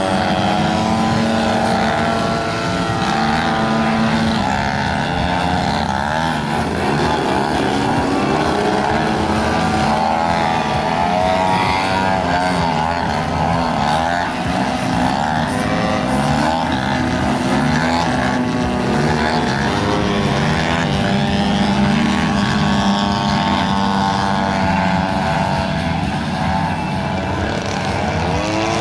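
Single-cylinder two-stroke gasoline engine (DA-85) of a giant-scale Ultimate aerobatic biplane, running continuously through its manoeuvres. Its note rises and falls with throttle changes and passes.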